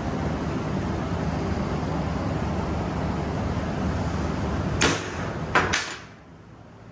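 Steady low hum and noise from the shop, then three sharp metal strikes near the end, a hammer hitting a center punch on steel channel to mark the hole centre; the background hum drops away right after the last strike.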